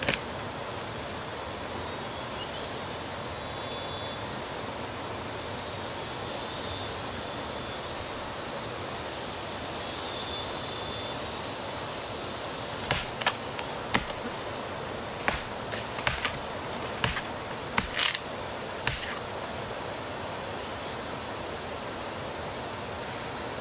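A machete chopping into the fibrous top of a palm stump: one chop at the very start, then about a dozen sharp chops in quick succession past the middle, over a steady background hiss.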